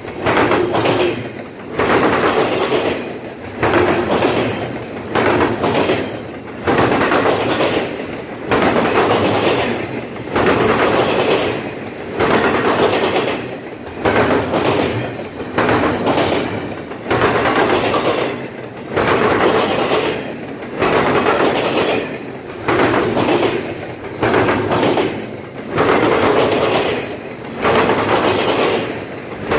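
Double-stack intermodal freight train rolling past, its wheels clattering over a rail diamond crossing. The sound comes in a steady rhythm of loud stretches with short dips about every second and three-quarters.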